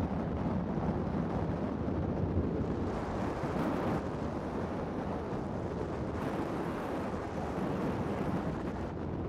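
Wind buffeting the microphone in a steady rush while parasailing high above the sea.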